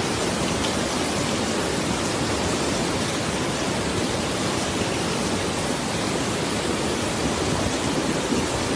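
Fast-flowing floodwater rushing and churning in a torrent: a steady, dense rush of water noise.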